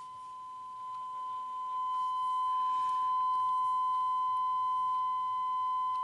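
Steady 1 kHz sine test tone passing through a yellow Fasel 500 mH wah-pedal inductor test circuit. It grows louder over the first three seconds and then holds level, with faint higher overtones joining about two seconds in.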